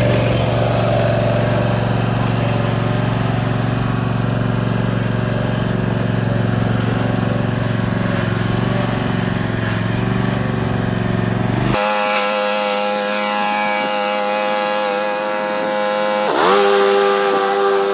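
An engine running steadily, cut off suddenly about twelve seconds in by a steady chord of several held tones that dips briefly in pitch near the end.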